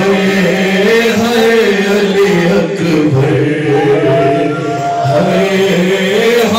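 A man chanting a noha, a Shia mourning lament, into a microphone and amplified through the hall's sound system, in long held sung lines with no pause.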